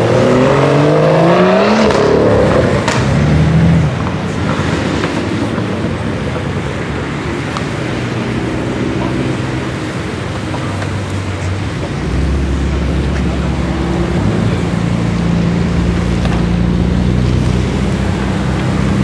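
BMW M cars driving out past one after another. In the first few seconds an engine revs up and rises in pitch, then drops away sharply. After quieter running noise, a steady low engine drone sets in about two-thirds of the way through, as the next car crawls close by.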